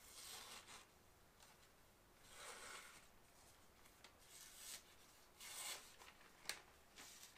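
Faint paper rasps as an SOS out-the-front knife's blade slices through a magazine page in four or five short strokes, with a small click near the end. It is a paper-cutting sharpness test of a factory edge that is rated "not great".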